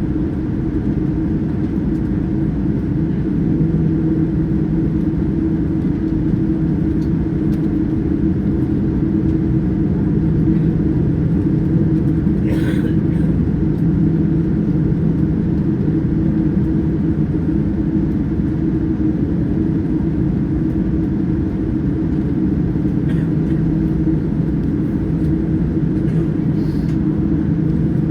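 Steady cabin noise inside a Boeing 787-9 airliner: a constant low engine and airflow hum with a few steady tones, and one faint brief click about twelve seconds in.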